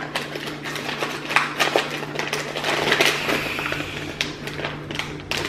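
Herb supplement packages and containers being handled: irregular small clicks, taps and rustles, with a steady low hum underneath.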